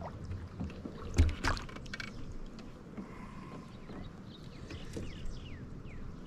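Water sloshing and splashing at the side of a canoe, with two sharp splashes or knocks about a second in, the first the loudest. A few short falling chirps come near the end.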